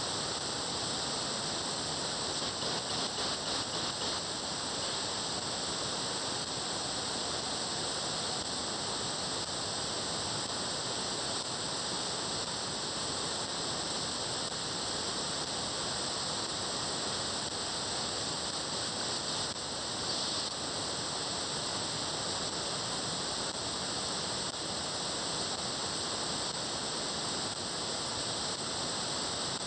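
Steady receiver hiss from an SDRPlay RSP1 software-defined radio tuned to the MRC-100 satellite's 436.7 MHz downlink. Only noise is heard, with no clear signal coming through.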